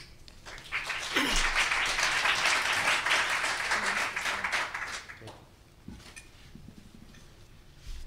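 Audience applause, starting about a second in and dying away after about four seconds, followed by a few faint knocks.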